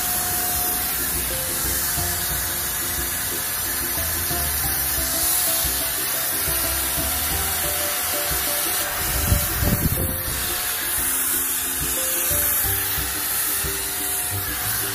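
Handheld electric paint sprayer running with a steady hiss as it sprays paint onto a wooden fence, under background music. A brief low rumble comes about nine seconds in.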